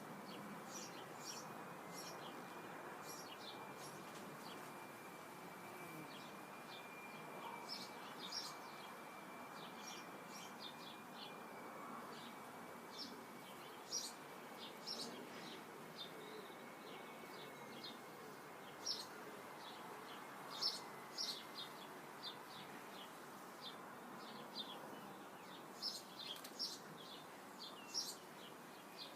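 Small birds singing and chirping: short high calls scattered irregularly throughout, over a faint steady background hiss. A thin steady tone holds through roughly the first half, then fades out.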